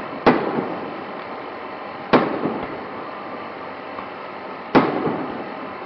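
Aerial firework shells bursting: three sharp bangs about two to two and a half seconds apart, each followed by a fading echo.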